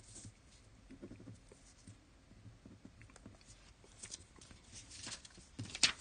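Faint, scattered rustling and light clicks of small objects being handled, with one sharper click shortly before the end.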